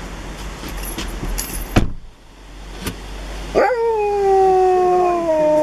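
A husky howling: one long howl that starts about three and a half seconds in, jumps up quickly and then slides slowly down in pitch. Before it, a sharp click just under two seconds in.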